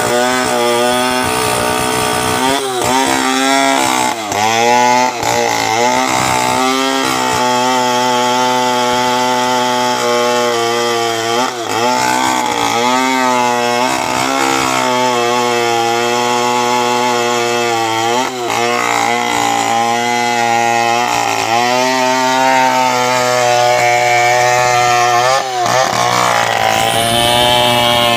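A large two-stroke 070 chainsaw running at high speed, cutting lengthwise along a soft coconut palm log. Its pitch dips briefly and recovers several times.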